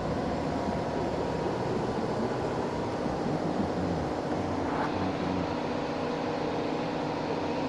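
A motor running steadily, a continuous mechanical drone.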